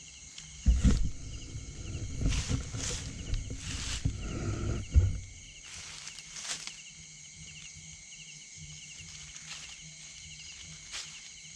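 Rough handling thumps, knocks and rumbling for the first five seconds as a hooked eel is pulled up from a pond hook line. Insects chirp in a steady rhythm in the background.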